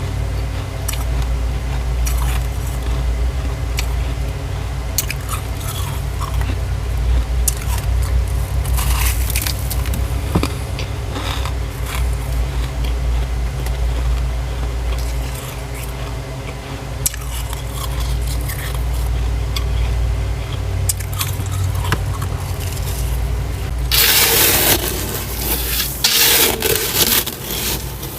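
Frost being scraped from the walls of a deep freezer: scattered light scrapes and crunches over a steady low hum, then loud, continuous scraping near the end.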